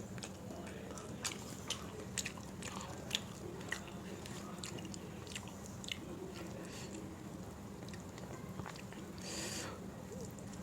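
Close-up eating sounds of a meal of dal, rice and soft vegetable dishes: wet chewing with sharp mouth clicks and smacks, most of them in the first few seconds. There is a short rush of breath-like noise near the end, over a steady low hum.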